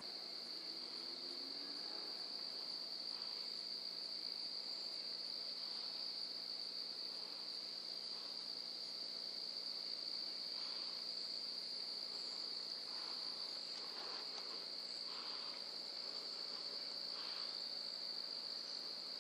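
Crickets trilling in one steady, unbroken high-pitched drone.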